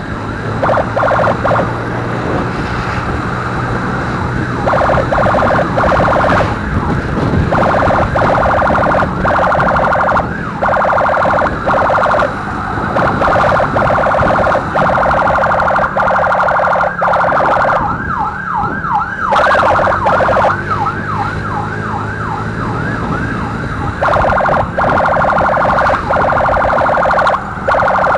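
Electronic emergency siren, loud, changing between a fast rising yelp and a rapid pulsing tone that breaks off briefly every second or two. A motorcycle engine hums underneath.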